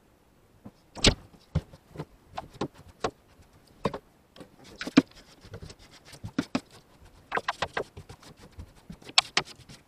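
Irregular clicks, knocks and rustling of objects being handled and moved about in a truck cab, the loudest knocks about a second in and near the end.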